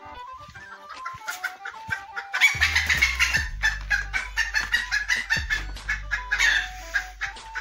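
Chickens clucking, the calls thickening and getting louder about two and a half seconds in, over background music.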